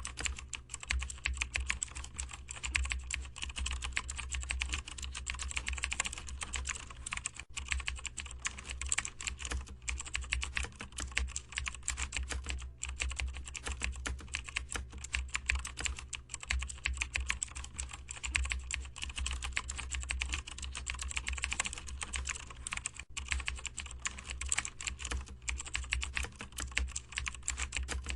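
Typing on a computer keyboard: a fast, continuous, irregular run of keystrokes over a steady low hum.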